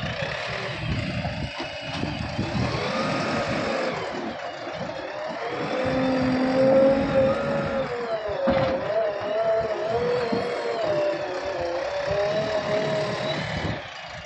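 JCB 3DX backhoe loader's diesel engine running and revving up and down as the machine drives into the gravel pile and works its front loader bucket. Its pitch rises and falls with the load, and it is loudest about six to seven seconds in.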